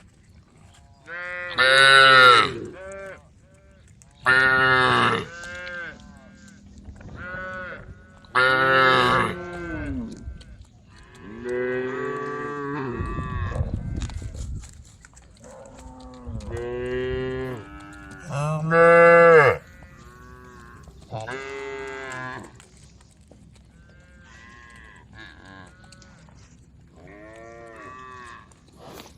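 Cattle mooing to the herd, about a dozen long calls from several cows in turn, some loud and near, others fainter, the loudest about 2, 5, 9 and 19 seconds in.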